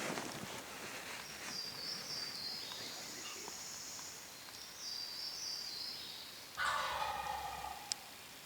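A wild turkey tom gobbles once, loudly, about two-thirds of the way through, answering the hunters' calls as it comes in close. Before it, a small bird sings two short, high phrases.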